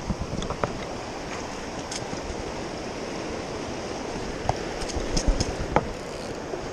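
River water rushing over shallow rapids, a steady wash, with a few short knocks and clicks between about four and a half and six seconds in.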